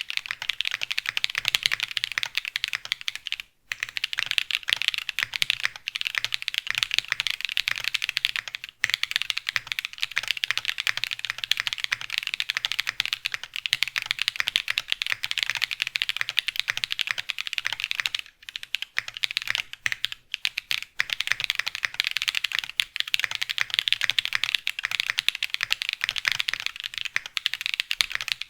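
Fast continuous typing on a mechanical keyboard with lubed Everglide Dark Jade Black (Moyu Black) tactile switches, a dense stream of clicks with a few short pauses. The springs are lubed and the switches sound clear, with no spring ping audible.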